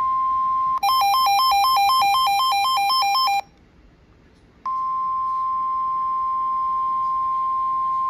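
Emergency alert tones announcing a severe thunderstorm warning. A steady tone of about 1 kHz, then a rapidly alternating two-pitch electronic warble for about two and a half seconds, a brief pause, and a second steady tone of about 1 kHz lasting over three seconds.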